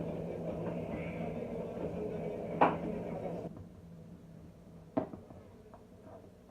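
LG TROMM front-loading drum washing machine running with a steady low hum, which cuts off about three and a half seconds in. A sharp click comes just before the hum stops, another about a second and a half later, then a few light ticks.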